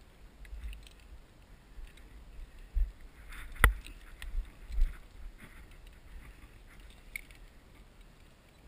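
Climbing rope and its hardware being handled as the rope is pulled in: faint scrapes and ticks over low thumps of handling and wind on the microphone, with one sharp click about three and a half seconds in.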